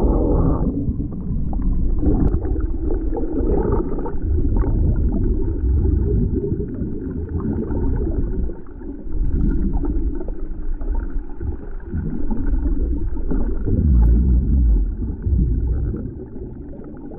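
Muffled underwater sound: low rumbling and gurgling of churned water and air bubbles around a snorkeller, with the high end cut off.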